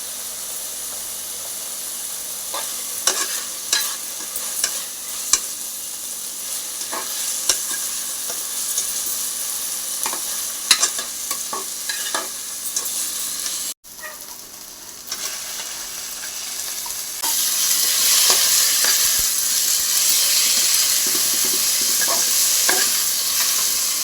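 Food frying in hot oil in a pan for a fish curry, a steady sizzle with a spatula stirring and clicking against the pan. The sizzle cuts out for a moment partway through, then comes back louder near the end.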